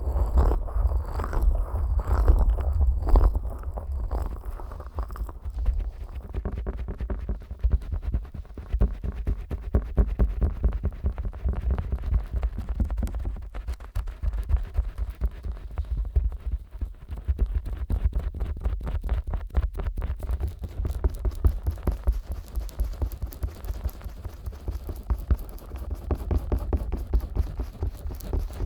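Fingers rubbing and massaging the silicone ears of a 3Dio binaural microphone, slick with petroleum jelly: close, deep rumbling with quick rapid strokes, broader sweeping rubs in the first few seconds.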